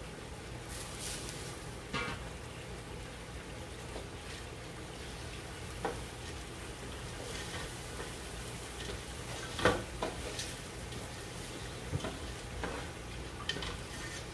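Raw rice being stirred in hot oil in a metal pot with a wooden spatula: a faint sizzle with scattered scrapes and knocks of the spatula against the pot, the sharpest about ten seconds in, over a steady low hum.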